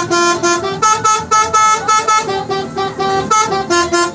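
Bus telolet horn playing a quick tune: a rapid run of short, separate horn notes changing pitch, about four or five notes a second.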